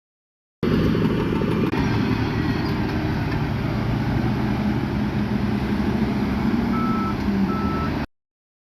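Diesel engine of heavy earthmoving machinery running steadily, with a backup alarm beeping twice near the end.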